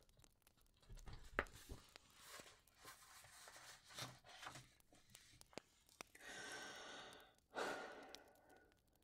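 A woman's soft breathing: faint rustling and small clicks, then about six seconds in a long breath in, followed by a louder sighing breath out that fades away.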